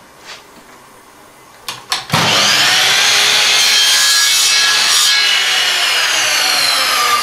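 Electric mitre saw starting up about two seconds in after a few clicks and cutting a round wooden dowel. Its pitch rises as it spins up, then slowly falls through the second half.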